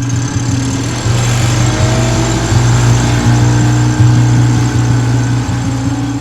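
Johnboat's outboard motor running steadily, getting louder about a second in, with a rushing hiss over it.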